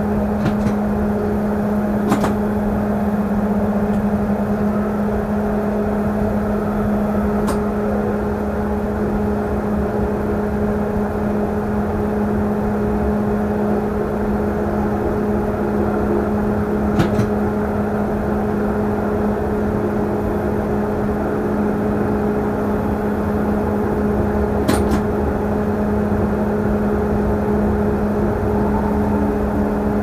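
Steady running noise heard from the driver's cab of a class 423 S-Bahn electric multiple unit moving through a tunnel: a constant hum over a low rumble, with a few sharp clicks here and there.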